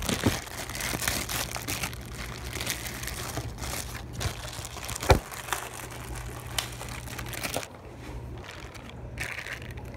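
Plastic plant bags crinkling and rustling as they are handled and pulled open, with many sharp crackles and one louder snap about five seconds in. The crinkling eases off near the end.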